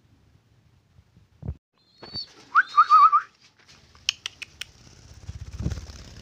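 Pet lovebird giving a quick run of short, shrill chirps about two seconds in. Sharp clicks follow, and then a low fluttering rumble near the end.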